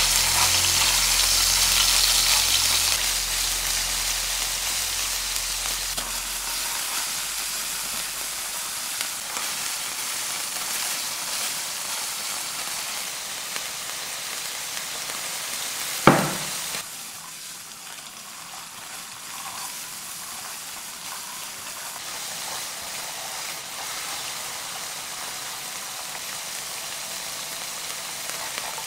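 Ground beef sizzling in a hot nonstick pan, loudest just after it goes in and then easing to a steadier hiss as a silicone spatula breaks it up. There is a single sharp knock about sixteen seconds in, after which the sizzle is quieter.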